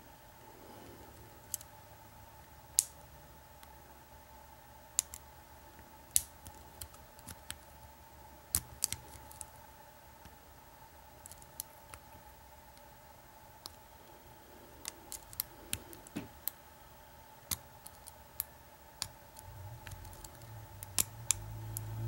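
Lock pick and tension wrench working the six pin tumblers of an American 2500 puck lock: sharp metallic clicks that come singly or in quick little clusters at uneven intervals. A faint steady hum runs underneath, and low rumbling handling noise of the lock in the hand swells near the end.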